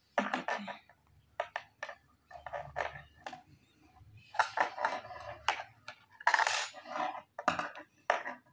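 Metal knitting needles clicking and scraping against each other in irregular bursts as stitches are bound off by hand.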